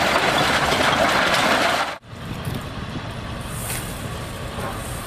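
Bobcat 773 skid-steer loader running loudly as it works a pile of rubble and debris. About two seconds in, the sound cuts suddenly to a quieter, steady outdoor background with a low machine rumble.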